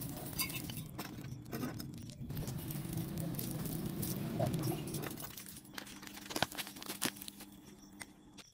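Wood fire and charcoal crackling, with scattered sharp pops over a steady low rush; it grows quieter about five and a half seconds in, leaving a few isolated pops.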